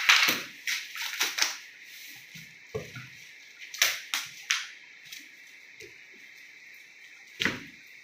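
Packing tape being pulled off the roll and pressed onto a cardboard carton, heard as a series of short scraping and crackling sounds. The loudest comes at the very start, a few more follow around four seconds in, and one comes near the end.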